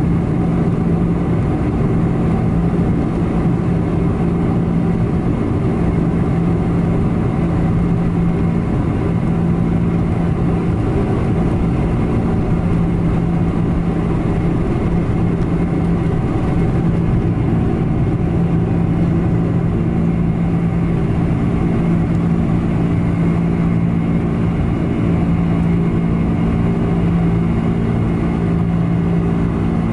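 Boeing 747-400's four General Electric CF6-80C2 turbofan engines running at takeoff thrust, heard inside the cabin from a window seat over the wing, as the jet accelerates down the runway, lifts off and climbs away. A loud, steady drone with a low hum and an even rumble that hold unbroken throughout.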